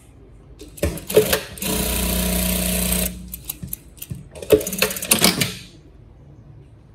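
Industrial sewing machine stitching a fabric strap: a few knocks about a second in, then about a second and a half of steady running, then a shorter stretch of clattering stitching.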